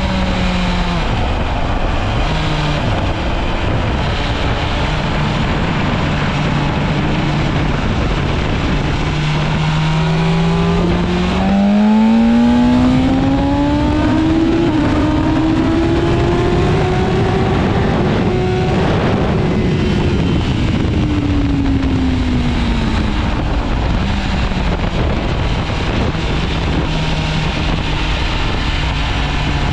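BMW S1000RR inline-four engine heard onboard at speed with wind noise over it: the engine note holds a steady low pitch, then climbs for several seconds under acceleration from about halfway, falls away as the bike slows, and settles back to a steady low pitch near the end.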